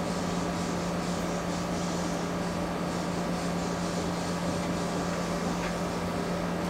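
Steady low hum with an even hiss: background room noise from a running machine, with no other event standing out.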